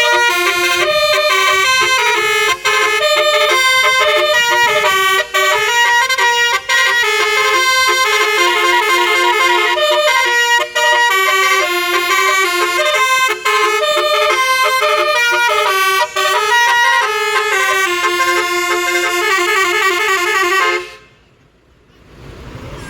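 Basuri multi-tone 'telolet' bus horn playing a melody of stepping horn notes. It pauses briefly a few times between phrases and cuts off near the end.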